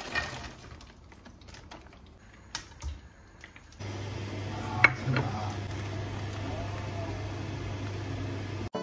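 Kitchen cooking sounds at a gas hob: light clicks and packet rustling as food is tipped into a frying pan. From about four seconds in, a steady low hum with a hiss sets in, broken by one sharp clack about a second later.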